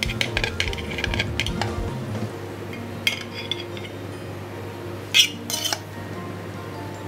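Kitchen clatter of dishes and utensils: a quick run of light clicks and clinks in the first couple of seconds, a few more about three seconds in, and two sharper clatters about five seconds in.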